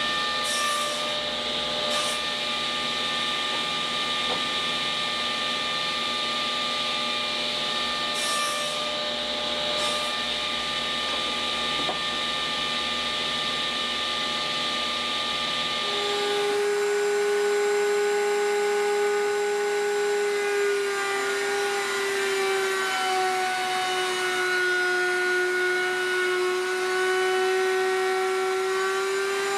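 Table saw running as a mitred frame held upright in a jig is pushed through the blade, with brief sharper bursts as the blade cuts into the corner. About halfway through the saw sound gives way to a router table's high whine, its pitch dipping and wavering as the bearing-guided bit routes along the frame's inner edge.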